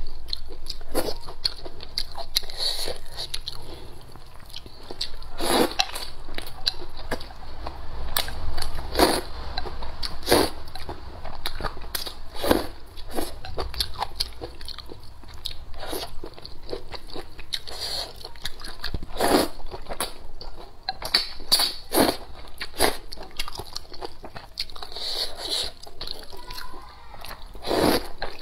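Close-up mouth sounds of eating wide flat noodles in spicy soup: wet chewing and smacking with many sharp irregular clicks, broken by several longer slurps.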